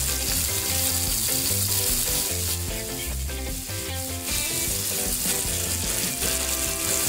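Beef flat iron steak searing on a hot grill grate, its butter-brushed underside giving a steady sizzle.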